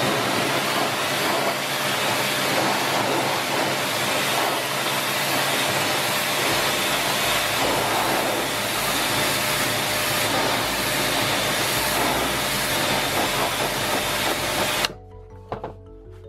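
Karcher K5 electric pressure washer spraying a jet of water onto wooden deck boards: a steady hiss of spray over a low hum. The spray cuts off suddenly near the end as the trigger is released.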